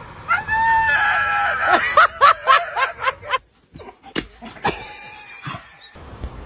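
A bird squawking: one long call, then a quick run of short squawks.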